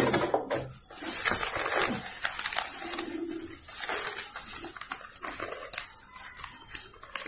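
A Usha Janome Dream Maker 120 sewing machine finishes a line of stitching and stops within the first second. After that comes the rustle of cloth and its paper backing as the sewn fabric is drawn out and handled.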